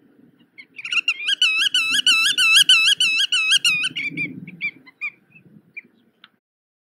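Black-tailed godwit calling: a fast run of about a dozen dipping notes, some four a second, then a few scattered single calls that trail off. A faint low rumble lies underneath.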